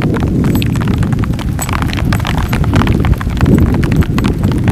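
Wind buffeting the microphone in a steady low rumble, over quick crackling and knocking as camping gear and a plastic bag are rummaged through by hand.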